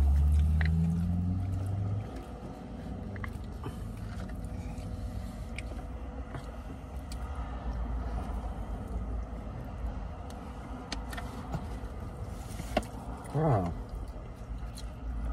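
Steady low rumble of a parked car's running engine heard from inside the cabin, with faint clicks and crinkles from a paper wrapper and a plastic dip cup being handled. A loud low hummed 'mmm' fills the first two seconds and cuts off, and a short vocal exhale comes near the end.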